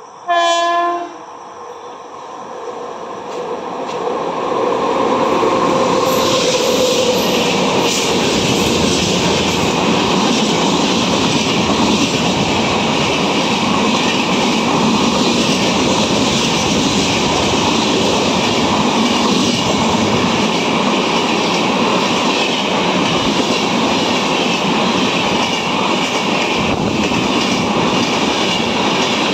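Electric express train with a WAP-7 locomotive: one short horn blast about half a second in as it approaches, then the train's noise builds over a few seconds into a loud, steady rush of coaches passing at speed, wheels clattering on the rails.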